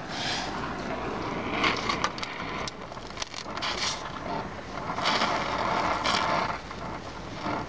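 Oxyacetylene torch flame hissing as it welds the car's sheet-steel running board, with scattered clicks and crackles in the first half and a steadier hiss near the middle.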